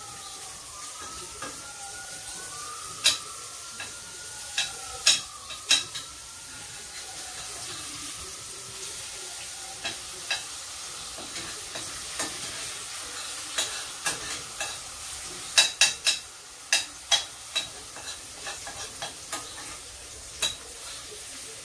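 Eggs and mushrooms sizzling in butter in a frying pan, a steady hiss, while a utensil stirs them, clicking sharply against the pan again and again, most densely about three quarters of the way through. A wavering high tone slides up and down through the first half.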